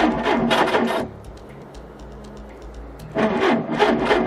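Boat engine being turned over by its starter, a fast rhythmic cranking that doesn't catch: about a second of cranking, a two-second pause, then cranking again. The engine fails to start, which the owner puts down to the battery rather than the fuel.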